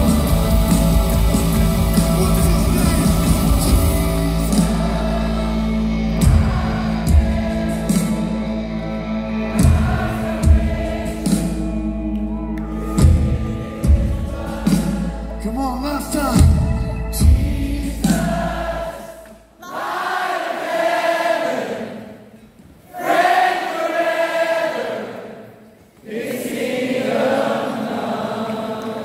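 Live worship band playing a loud full-band song, with a steady bass, repeated drum hits and many voices singing. About two-thirds of the way through the instruments drop out, leaving the crowd singing unaccompanied in phrases broken by short pauses.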